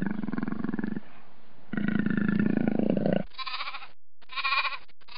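A leopard growls low, twice. From about three seconds in, a lamb bleats in short repeated calls.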